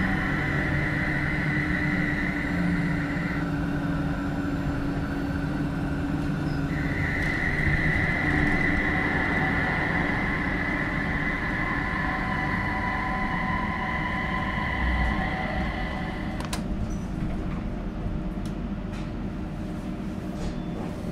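Rhein-Neckar-Verkehr M8C-NF tram running, its retrofitted inverter traction drive giving a steady high whine. The whine drops out for about three seconds around four seconds in, then returns. It stops about three-quarters of the way through, followed by a few sharp clicks as the tram runs on more quietly.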